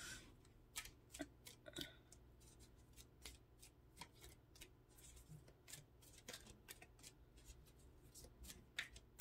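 Tarot cards being handled and shuffled: faint, irregular clicks and snaps of card stock.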